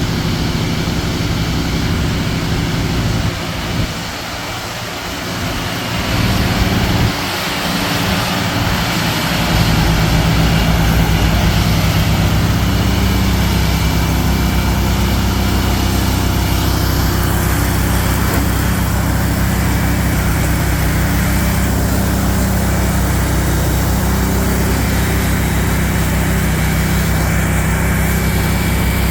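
Mahindra eMax 20 compact tractor's diesel engine running steadily, dipping and uneven for a few seconds about four to nine seconds in, then steadier and a little louder from about ten seconds in.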